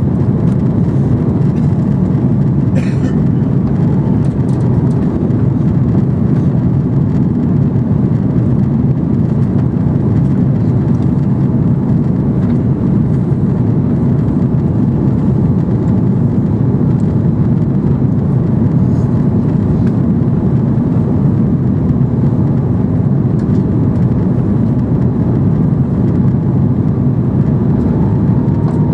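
Steady low drone inside an Airbus A330's passenger cabin on approach to landing: engine and airflow noise, even and unbroken.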